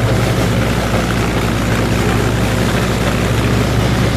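Minneapolis-Moline U302 Super tractor engine running steadily under load, pulling a flail chopper that is grinding corn stalks.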